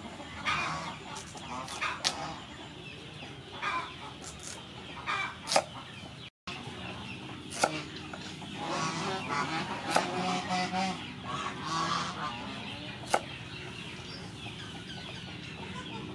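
Kitchen knife chopping carrot on a wooden cutting board, a few sharp chops spaced a second or more apart, over chickens clucking throughout. The sound cuts out for a moment a little past the middle.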